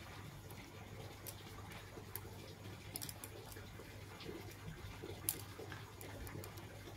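Cut blouse cloth being handled and smoothed by hand on a cutting table: faint rustling and small scratchy sounds, with one sharp click about five seconds in, over a low steady hum.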